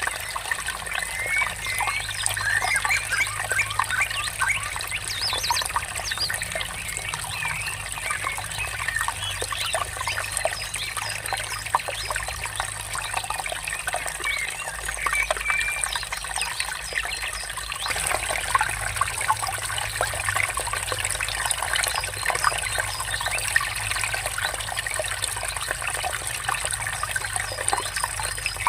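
Water trickling and babbling steadily, with many birds chirping and twittering throughout.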